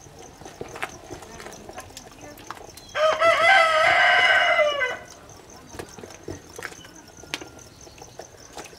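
A rooster crowing once, about three seconds in, a single call of about two seconds that rises at the start and drops away at the end. Faint clinks of a ladle against a clay pot around it.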